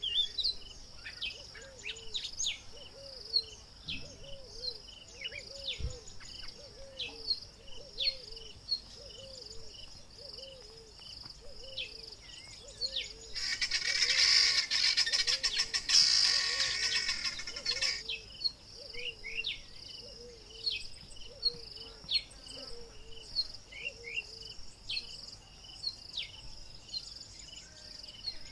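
Bushveld ambience: a steady high insect drone with many small birds chirping, and a low call repeating about once or twice a second. In the middle, a louder rapid rattling sound lasts about four seconds.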